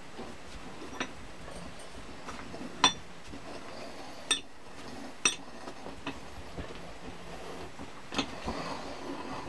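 Sharp metallic clinks and knocks from an old cast-iron Record No. 5 bench vice being worked apart by hand, its moving jaw and screw being loosened and drawn out. There are about half a dozen separate clinks, the loudest about three seconds in.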